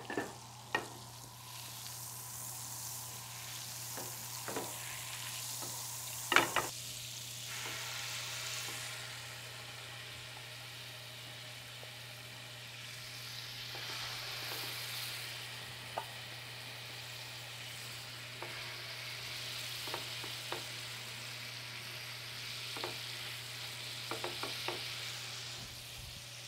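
Fish fillets frying in butter and olive oil in a ceramic grill pan: a steady sizzling hiss, with a few sharp knocks of utensils and pan along the way.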